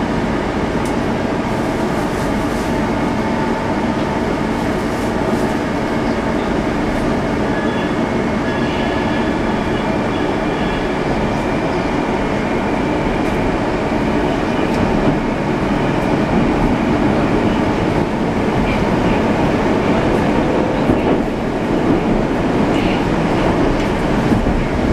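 Running noise inside a Moscow Metro 81-765.2 "Moskva" subway car travelling through a tunnel: a steady rumble of wheels on rail with a few faint steady tones over it, growing slightly louder about halfway through.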